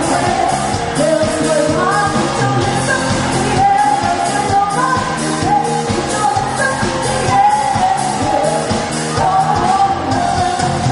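A band playing a song with a lead singer, the drums keeping a steady beat of about three hits a second.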